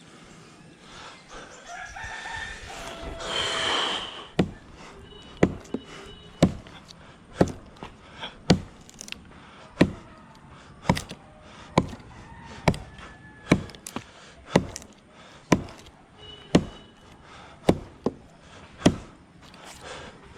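A rooster crows once in the first few seconds. Then a blade chops into wood in sharp, steady strokes, about one a second and some fifteen in all.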